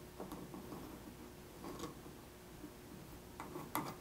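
Faint, scattered clicks and taps of fingers handling a plastic propeller and threading its metal prop nut onto a drone motor shaft, with a couple of sharper clicks near the end.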